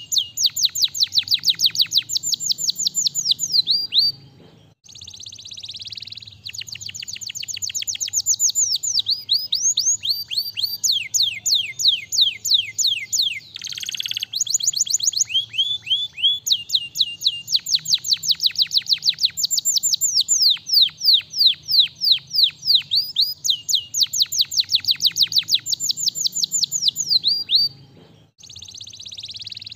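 Domestic canary singing a long, fast song of rapid trills, one rolling phrase running into the next, with a harsh buzzy note midway and short breaks about five seconds in and near the end.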